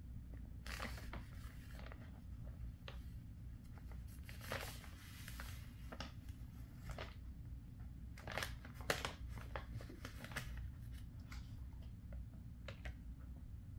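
Plastic snack pouch crinkling and rustling faintly in short, scattered crackles as a dog noses and nudges it, trying to get at the treat inside.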